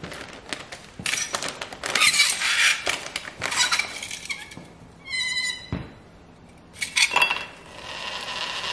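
Plastic bag rustling and metal tongs scraping and clinking against chunks of dry ice as a piece is picked out, with a short squeak about five seconds in. Near the end comes a sharp clink as the dry-ice cube drops into a glass tumbler.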